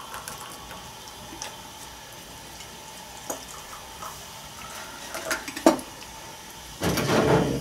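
Tea being poured from a steel teapot into glass tea glasses, a faint trickle with a few light clinks of glass and tableware.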